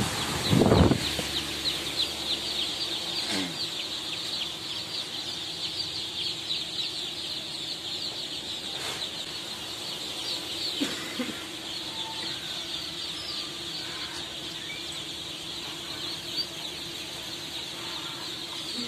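Hundreds of ducklings in a brooder pen peeping all at once, a dense, continuous chorus of high chirps, over a steady low hum from an electric fan. There is a short thump about a second in.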